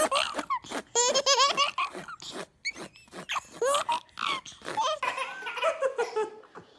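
A baby laughing hard in a run of short, high-pitched peals and giggles.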